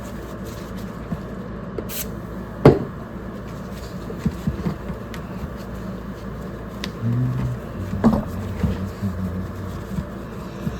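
Knocks and clicks of a CB radio being handled and turned over on a work surface, with one sharp knock about two and a half seconds in and a few lighter taps after it.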